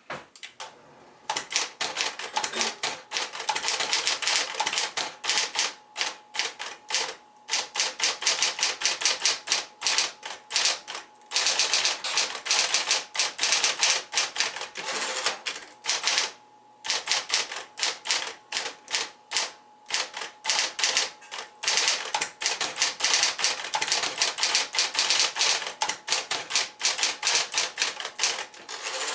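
Mid-1960s Smith-Corona Electra 120 electric portable typewriter typing in fast, continuous runs of keystrokes over a steady motor hum. There are brief pauses about 11 and 16 seconds in.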